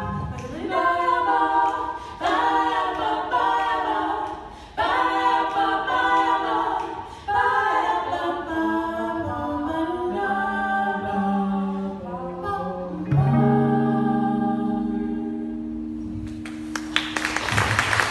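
Three women singing a song in close vocal harmony, ending on a long held chord about two-thirds of the way in. Applause breaks out near the end.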